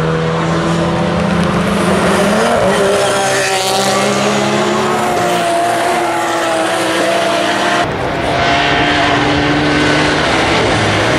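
Racing cars passing at speed, their engines running hard at high revs with shifting pitch; one sweeps past about three seconds in, and the engine sound changes abruptly about eight seconds in.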